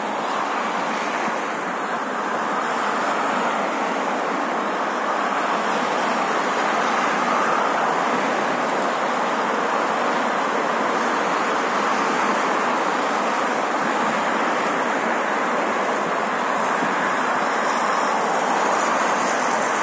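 Steady wash of multi-lane highway traffic, mostly tyre noise from cars and vans passing in both directions, with no single vehicle standing out; it grows a little louder a couple of seconds in and then holds.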